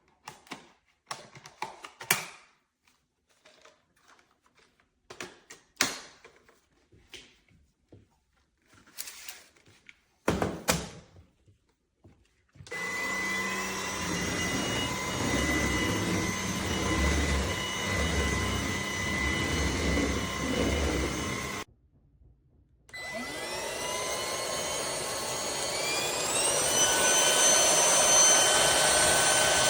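Several clicks and knocks of the MBYULO cordless stick vacuum being handled, then its motor switched on, running steadily with a high whine. About 22 seconds in it cuts off for a second, then starts again, its whine rising as the motor spins up and running louder near the end.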